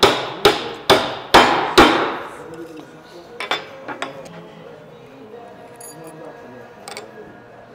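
Hammer striking a tubular driver to seat a ball bearing onto the steel drive screw of a three-rotor screw pump: about five sharp metallic blows in the first two seconds, each ringing briefly. A few lighter clinks follow.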